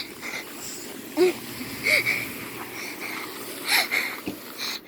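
A person breathing hard and gasping after a fright: several breathy gasps, with two short voiced squeaks in between.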